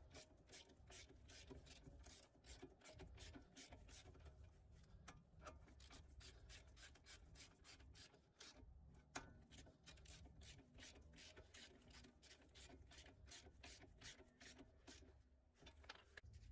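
Faint, quick clicking of a hand ratchet running down the ball joint nuts on a lower control arm, in runs with short pauses between strokes.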